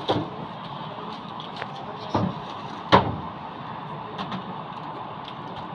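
A drawer of a metal supply cart being slid shut, with a few short knocks and rattles, the loudest about three seconds in, over steady background noise.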